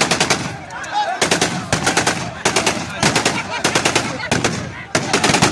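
Celebratory automatic gunfire with live ammunition: repeated rapid bursts of shots, one burst after another, with people's voices in the gaps.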